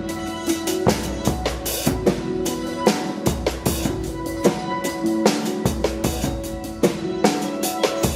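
Live rock band playing an instrumental passage: a busy drum kit with kick, snare and rimshots, several hits a second, over sustained pitched notes and a low bass.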